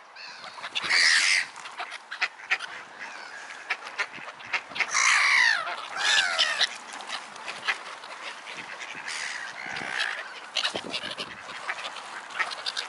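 A crowd of pond birds calling, ducks quacking among them, with a loud call about a second in and two louder calls falling in pitch between about five and six and a half seconds in.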